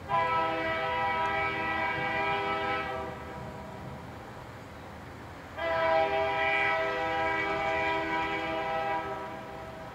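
Locomotive air horn sounding two long blasts, a chord of several notes held for about three and four seconds, with a short gap between them.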